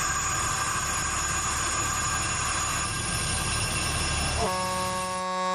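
Alishan Forest Railway train running on the line, a steady rumble with a high whine. About four and a half seconds in, its horn starts and holds one steady chord.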